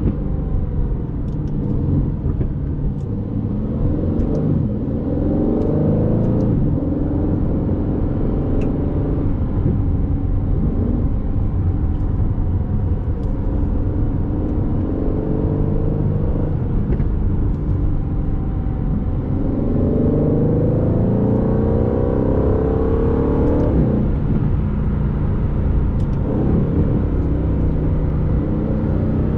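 Aston Martin Vantage's 4.0-litre twin-turbo V8 engine and exhaust driving under load, a steady low running note with several rising climbs in pitch as the car accelerates. The clearest climbs come about a quarter of the way in and again about two thirds of the way through, and each cuts off suddenly.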